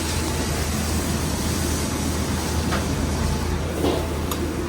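Randell one-door upright freezer running with a loud, steady mechanical noise: a constant low hum under a broad whir, with a few faint clicks. The noise is the fault being investigated.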